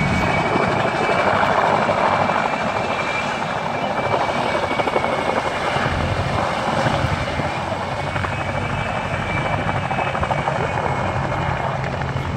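Helicopter flying low and manoeuvring: a steady rotor-and-engine roar with a thin, steady high whine running through it.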